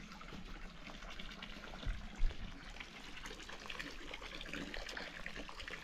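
Water running and trickling steadily, with two low bumps about two seconds in.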